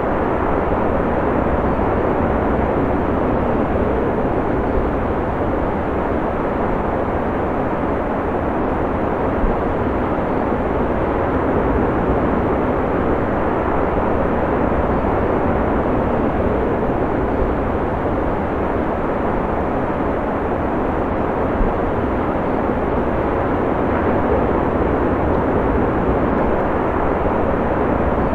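Ocean surf: a steady roar of breaking waves with no single crash standing out.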